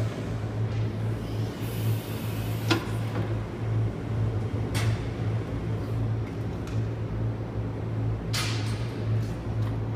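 Raymond Easi R40TT-M electric reach truck lowering its mast and forks: a steady low hydraulic hum with a few sharp clacks, about three seconds in, near five seconds and again about eight seconds in.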